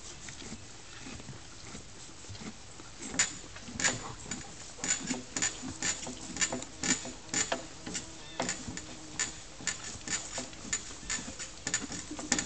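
Horse chewing feed: a quiet first few seconds, then from about three seconds in a run of irregular crisp crunches, two or three a second.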